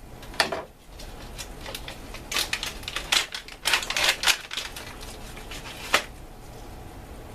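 Plastic MRE wheat snack bread pouch crinkling and crackling as it is worked and torn open, in irregular sharp crackles, the loudest one near the end.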